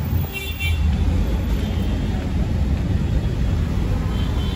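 Street traffic noise: a steady low rumble of passing cars, with brief faint high tones about half a second in and again near the end.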